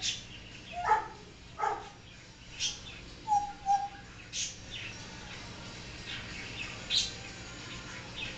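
African grey parrot making a string of short whistles, squeaks and chirps, with a gap of a couple of seconds before one last sharp call near the end.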